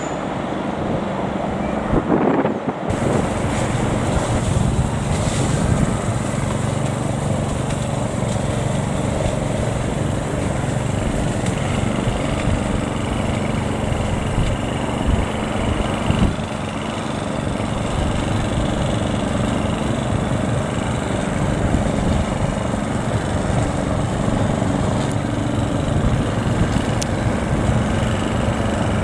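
Diesel engine of a High Speed Train power car running steadily as the train crosses slowly, with wind buffeting the microphone.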